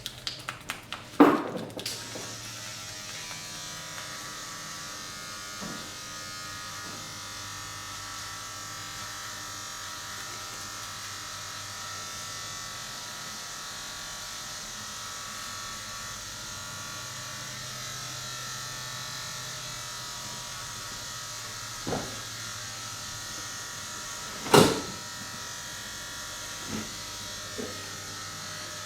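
A small electric motor running with a steady buzz. A few sharp thumps break in: one near the start, one at about 22 seconds, the loudest at about 25 seconds, then two small ones near the end.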